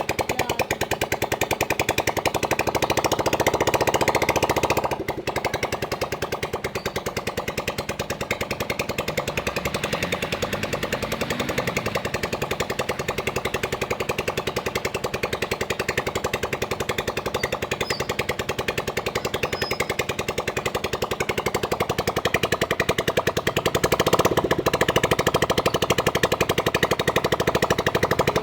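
Honda CG 125's single-cylinder four-stroke engine running with a rapid, even beat. It is louder for a few seconds near the start, dropping back suddenly about five seconds in, and louder again in the last few seconds.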